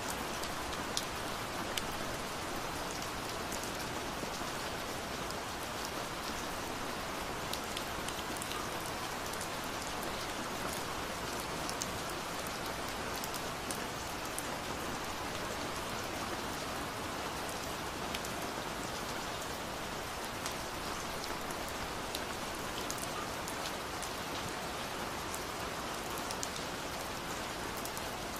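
Steady rain falling, an even hiss with many scattered sharp drop ticks.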